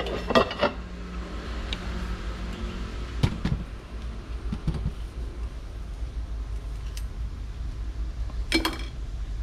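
Metal parts being handled on a workbench: a few scattered knocks and clicks, then a ringing metallic clank near the end, over a steady low hum.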